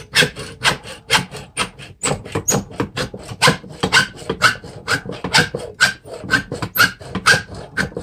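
Hacksaw cutting through the wooden handle end that sticks out of an old hatchet head, trimming it off. Steady rasping back-and-forth strokes, about two a second.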